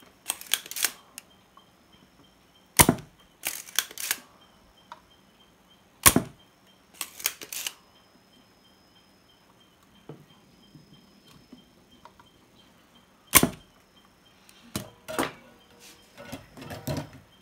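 Hand-tool clicks and snaps from work on the amplifier board as its power transistors are taken out: a sharp, loud snap about three, six and thirteen seconds in, each followed by a few lighter rattling clicks.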